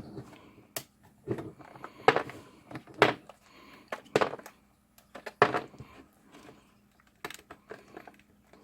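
Irregular clicks and knocks of hard plastic as a battery LED worklight's plastic case is handled and pried at to get it open, with several louder knocks spread about a second apart.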